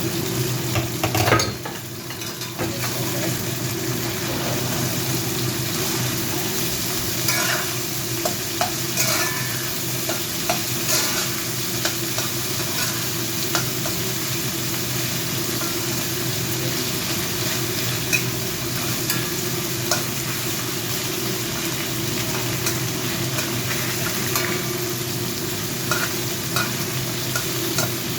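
Chicken legs frying in hot oil in a pan, a steady sizzle, with scattered clicks and scrapes of a utensil against the pan and one louder knock about a second in. A steady low hum runs underneath.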